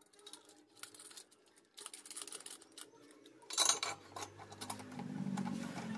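Light metal clicks, taps and scrapes as a homemade steel angle jig is handled and fitted against square steel tubing, with a louder clatter about halfway through. A low hum comes up in the second half.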